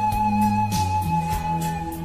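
Pan flute holding one long note over a bass line and a steady drum beat: instrumental pan-flute pop.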